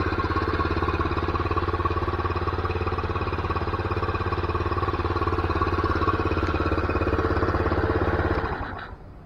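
Lifan single-cylinder four-stroke engine, swapped into a 1980 Honda Trail 110 (CT110), idling steadily with an even pulse, then switched off about eight and a half seconds in.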